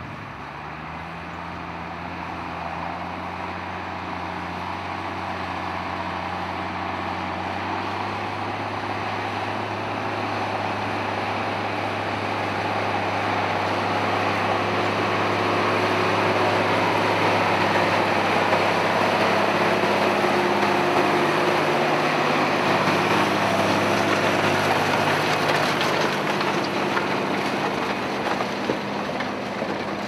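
Steyr CVT 130 tractor's engine working at a steady note as it pulls a reversible plough through the soil, growing louder as it comes closer and passes by about halfway through, then easing off a little.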